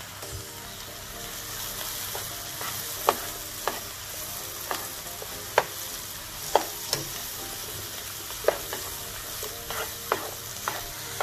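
Sliced mushrooms sizzling in butter and olive oil in a frying pan as they start to brown. From about three seconds in they are stirred with a plastic slotted spoon, which clicks and knocks against the pan about once a second.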